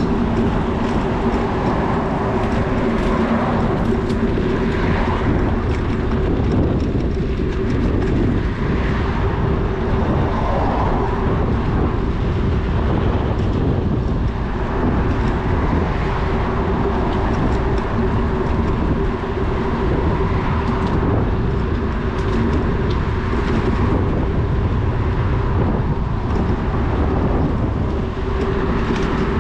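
Steady rumble and wind noise of a bicycle in motion, with a constant low hum running under it.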